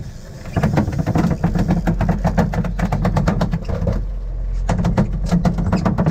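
Boat engine running steadily under a rapid, irregular run of knocks and slaps, which pauses about four seconds in and then picks up again.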